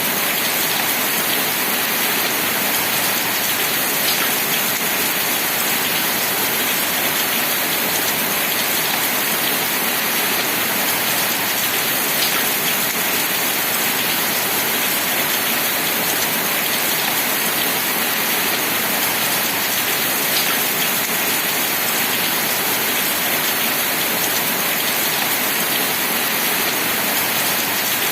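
Steady, heavy rain falling, an even hiss with an occasional sharper drop tick standing out.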